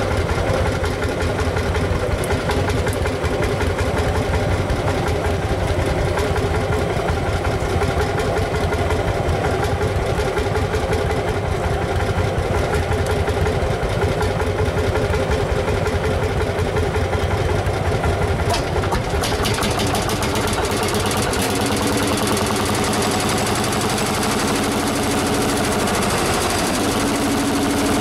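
Single-cylinder two-stroke hot-bulb tractor engines running steadily. In the last several seconds a higher, steady engine tone comes in and drops out several times.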